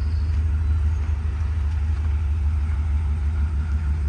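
Ford 7.3-litre V8 gas engine idling steadily, a low even rumble.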